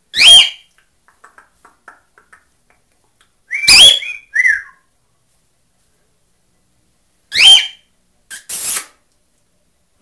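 Cockatiel giving short, loud whistled calls a few seconds apart, each a quick sweep in pitch, about three in all. A harsher, noisier burst follows near the end.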